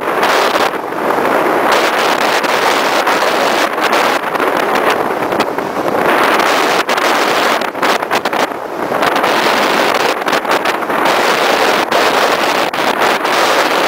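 Heavy wind rush on the microphone of a vehicle moving at road speed, a loud steady roar broken by frequent sharp buffets.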